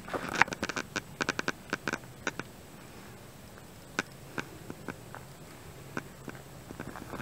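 Footsteps crunching on dry leaf litter: a quick, irregular run of crackles for the first couple of seconds, then only a few scattered clicks.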